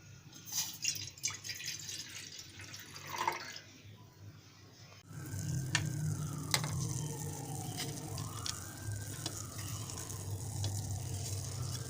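Water running and dripping, with a few sharp ticks. About five seconds in, a steady low hum comes in and the sound grows louder.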